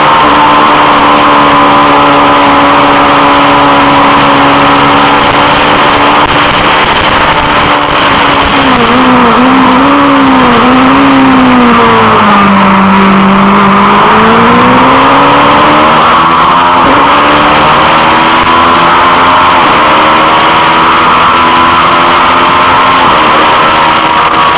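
Honda CB500 parallel-twin engine running hard at racing speed, heard onboard with heavy wind rush. About a third of the way in the revs drop in a few wavering steps, bottom out, then climb again as the bike accelerates out of the corner.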